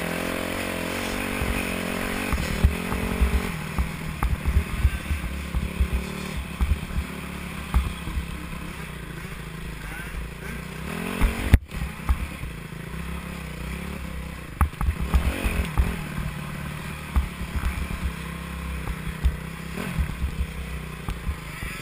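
Yamaha dirt bike engine running under the rider's helmet camera, revving up at the start and then pulling at low, uneven throttle. Frequent low thumps and knocks come through as the bike rides over rough ground, and the sound cuts out for an instant about halfway.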